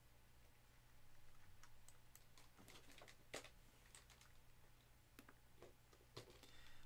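Faint, irregular clicking of computer keys, a dozen or so scattered taps, over a steady low hum.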